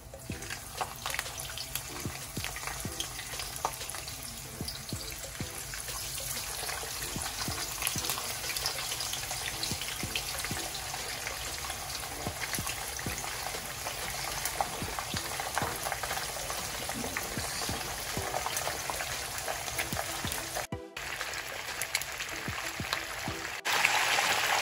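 Whole fish frying in hot oil in a pan as they are laid in one by one: a dense crackling sizzle with many small pops that slowly builds. Near the end it turns louder and fuller, the oil bubbling hard around the fish.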